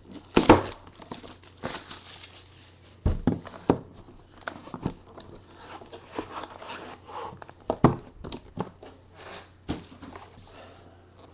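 Clear plastic shrink wrap being torn and peeled off a trading-card box, crinkling irregularly, with a few sharp knocks as the box is handled on the desk.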